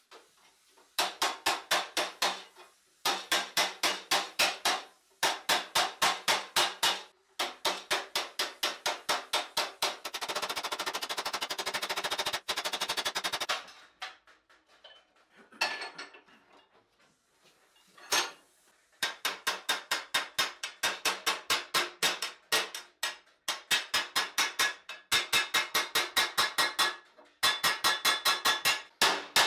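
Hand hammer beating a steel helmet visor on a stake anvil: bursts of quick, ringing blows, about six a second, broken by short pauses. Near the middle comes a longer run of very fast strokes, then a lull with only a few scattered knocks before the hammering starts again.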